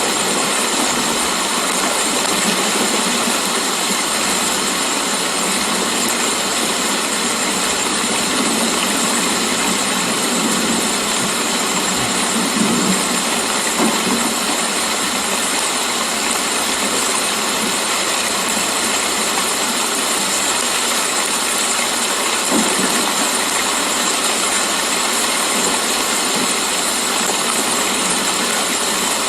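Steady rain falling, a dense, even hiss that holds at one level throughout.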